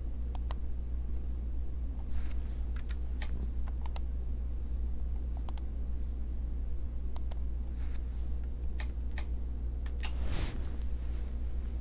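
Scattered sharp clicks of a computer's mouse and keys as a map is navigated, several coming in quick pairs, with a few soft swishes, over a steady low electrical hum.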